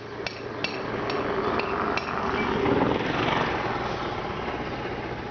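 Street noise: sharp metallic knocks about twice a second for the first two seconds, then a passing vehicle whose noise swells to a peak about three seconds in and fades away.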